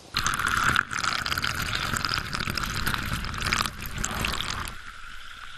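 Groundwater rushing out of an opened borehole, forced up by pressure from deep underground: a loud gushing that starts suddenly and eases off after about four and a half seconds.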